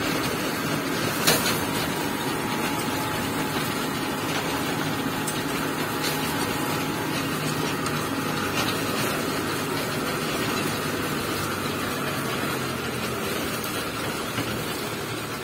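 New Holland TL95 tractor's diesel engine running steadily while pulling a seeder, with one brief knock about a second in.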